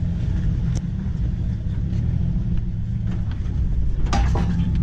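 Jeep Wrangler engine running low and steady as it crawls over rock, with a short clatter of clicks and scrapes about four seconds in.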